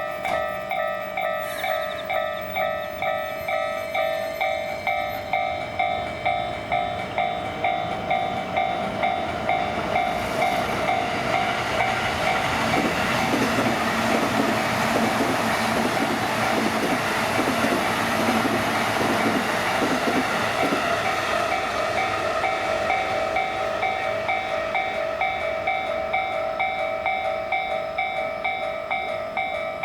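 Japanese level-crossing warning bell ringing steadily, a clanging electronic ding repeated at an even, fairly quick rate: the crossing is closed for passing trains. From about 12 to 21 seconds in, a train rumbles through the crossing over the bell.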